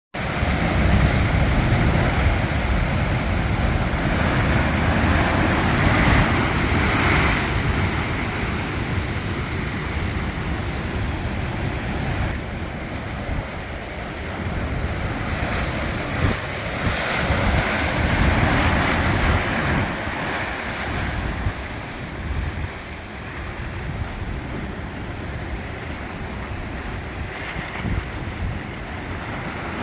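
Pacific Ocean breakers crashing and washing ashore in a continuous rush of surf, swelling louder in the first several seconds and again about two-thirds of the way through. Wind buffets the microphone with a low rumble.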